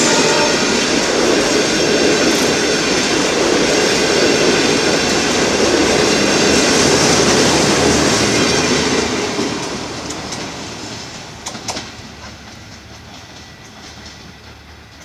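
Passenger train coaches rolling past at speed, a loud steady rumble of wheels on the rails. About nine seconds in the sound starts to fade as the last coach goes by, with a few sharp clicks a little later.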